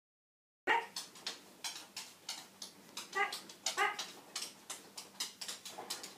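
A dog whining twice in short high whines, among scattered light clicks and taps, starting after about a second of silence.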